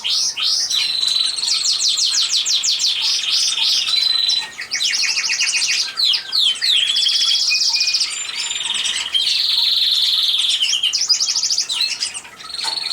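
Domestic canaries singing: long, fast trills of rapidly repeated high notes, one run following another with only brief breaks.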